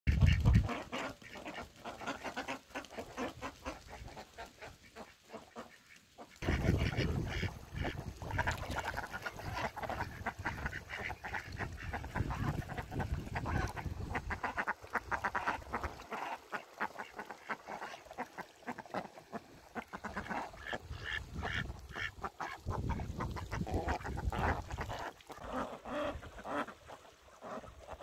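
Domestic ducks quacking in rapid, repeated calls, dropping off for a moment about five seconds in and then picking up louder again.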